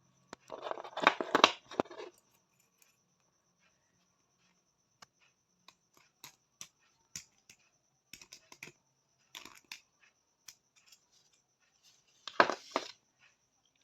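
Hand-forged steel nail clipper snipping and clicking. There are two louder rasping bursts, about a second in and near the end, with scattered small sharp clicks between.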